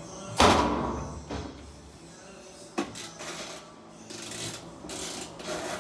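Laundry being handled at a top-loading washing machine: a loud thump about half a second in, two lighter knocks, then rustling near the end.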